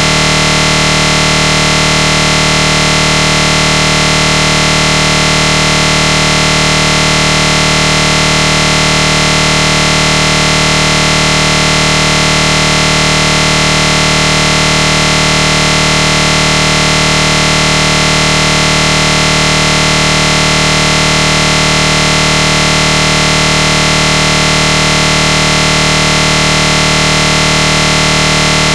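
A loud, steady buzzing drone made of many fixed tones, unchanging in pitch and level.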